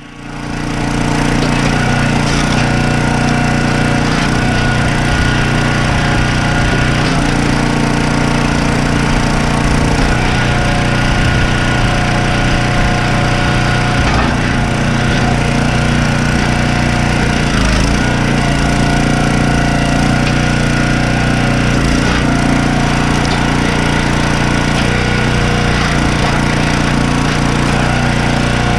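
Log splitter's small engine running steadily, with the crack of wood splitting.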